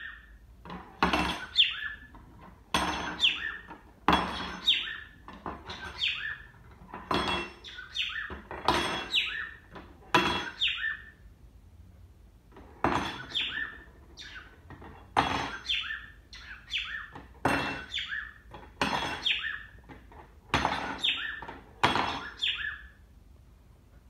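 A metal teaspoon clattering and ringing on wooden floorboards as a cockatiel pecks at it and flips it, in quick bursts every second or so with a short pause about halfway, mixed with the cockatiel's short chirps.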